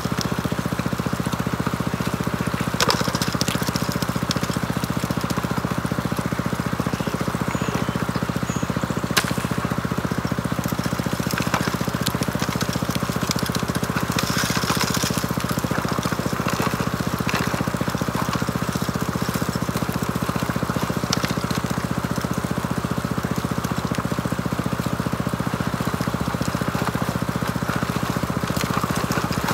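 Small engine running steadily at a constant speed, most likely the engine-driven water pump that feeds the high banker. Short clicks and clatter come through now and then, a few seconds in and again around the middle.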